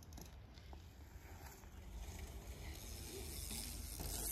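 Faint sound of a small BMX bike rolling over packed dirt, getting louder as the rider pumps through the rollers, over a steady low rumble.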